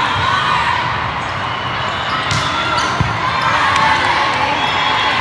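Echoing din of a large sports hall during volleyball play: many overlapping voices, with the sharp smack of a volleyball being hit a little over two seconds in and a duller thump about a second later.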